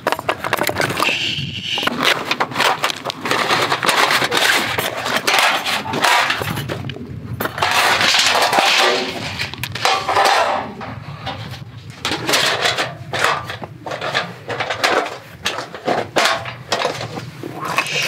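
Hatchet chopping and splitting firewood into kindling: repeated sharp knocks and cracking wood, with split pieces clattering down. Later, the metal parts of a folding steel fire stand clatter and scrape on gravel as it is set up.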